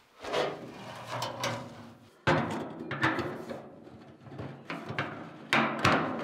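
Irregular knocks and clatter of hard objects being handled, the loudest about two seconds in and another pair near the end, some leaving a short ringing.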